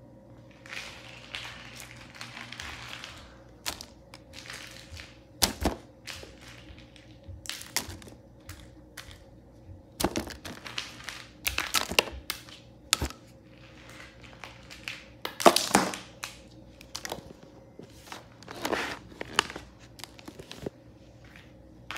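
Small plastic animal figures clattering and rustling as they are stirred around in a box full of them: irregular clicks and knocks, the loudest a little past the middle.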